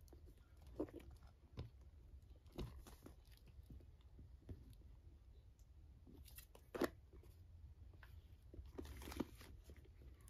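Faint handling noises of a handbag being turned over in the hands: scattered soft rustles, crinkles of tissue wrapping paper and light taps, the loudest about two-thirds of the way through.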